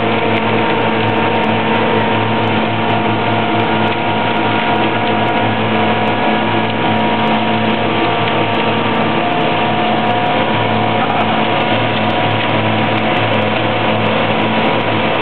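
Steady drone of heavy diesel construction machinery: a ready-mix concrete truck's engine running its drum as it discharges wet concrete down the chute, among the road-paving equipment. The level stays constant, with a steady engine hum under a dense rushing noise.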